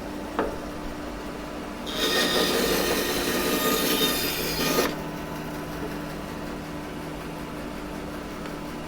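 A saw cutting through a slice of seasoning hardwood for about three seconds, starting about two seconds in, over a steady machine hum.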